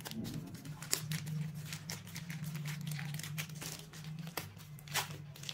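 Plastic protective sleeve crinkling and crackling as hands pull it open around a pen tablet, in a run of short, sharp crackles, loudest about a second in and again near the end, over a steady low hum.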